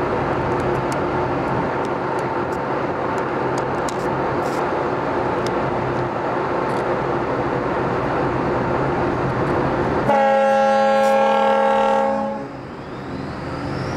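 Steady engine-and-water rumble aboard a ferry, then about ten seconds in a single loud, deep horn blast lasting about two seconds.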